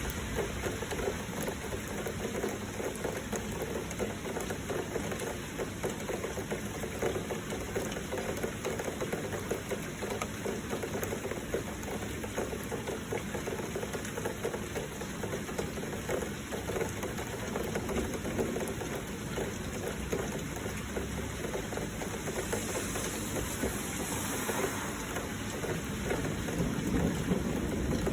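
Heavy rain falling steadily, with a low rumble swelling near the end.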